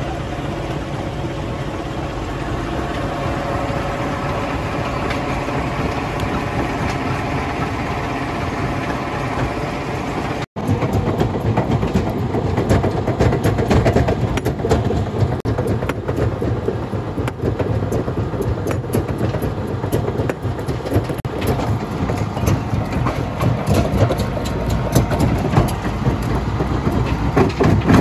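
A wheel loader's engine running steadily, then, after a cut about ten seconds in, a stone jaw crusher running and crushing rock: louder, dense, irregular clattering and knocking of stone between the jaws.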